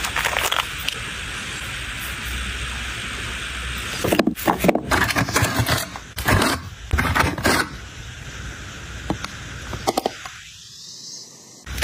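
Long acrylic nails clicking and tapping against hard plastic makeup compacts and an ornate hand mirror, with scraping and rustling as the pieces are picked up and turned. A steady hiss for the first few seconds gives way to a run of clicks and scrapes from about four seconds in.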